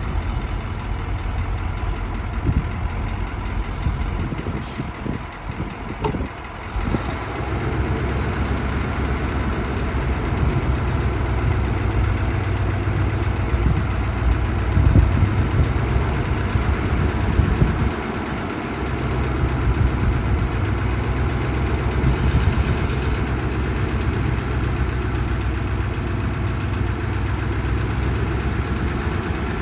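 1973 Chevrolet grain truck's engine running steadily while its hydraulic hoist raises the grain box, a little louder from about a quarter of the way in, with a brief dip a little past halfway.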